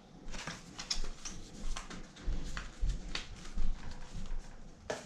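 Hands handling drone packaging and accessories: an irregular run of light clicks, rustles and small knocks, with a few low thumps.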